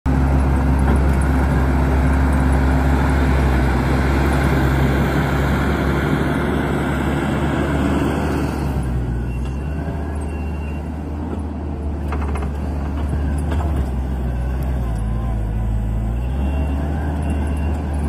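Kubota SVL90-2 compact track loader's four-cylinder Kubota V3800 diesel running steadily as the machine works dirt. It is louder and fuller for the first eight seconds or so, then quieter. The engine note dips and comes back up about fifteen seconds in, with a few faint short high beeps.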